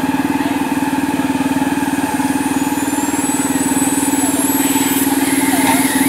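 Ride-on miniature train moving slowly with a steady engine drone. Near the end a hiss of steam from the small steam locomotive's cylinders joins in.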